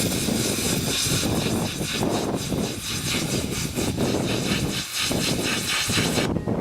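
Plasma cutter cutting car-body sheet metal: a loud, crackling high hiss that stops abruptly near the end, over a steady low rumble.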